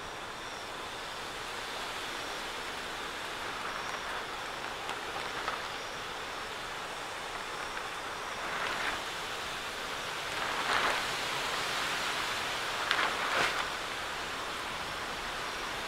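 Steady hiss of rain falling in a thunderstorm, with a few brief louder swells about nine, eleven and thirteen seconds in.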